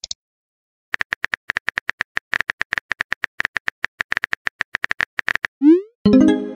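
Rapid run of keyboard typing clicks, about nine a second, for four seconds. Near the end come a short rising swoop and a chiming message notification tone.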